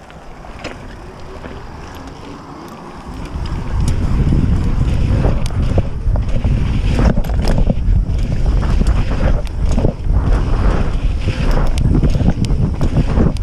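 Wind buffeting the microphone of a mountain bike rider's action camera, a loud low rumble that sets in about three and a half seconds in as the bike picks up speed over a pump track, with tyre roar on asphalt and scattered clicks and knocks from the bike.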